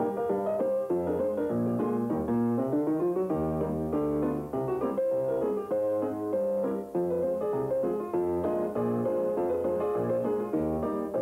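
Piano music with many quick notes, including a rising run about two and a half seconds in.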